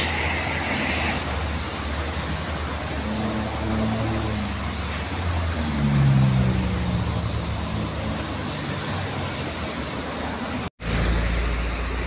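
Highway traffic going past: steady tyre and engine noise from cars, swelling as a vehicle passes about six seconds in.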